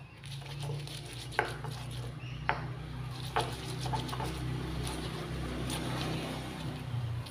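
Stone pestle (ulekan) grinding red chillies in a stone mortar (cobek): a steady rough scraping and crushing, with a few sharp stone-on-stone knocks, over a low steady hum.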